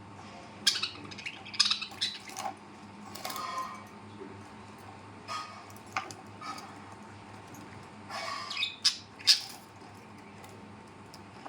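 Birds giving harsh squawks and short chirps in scattered bursts, with a low steady hum underneath.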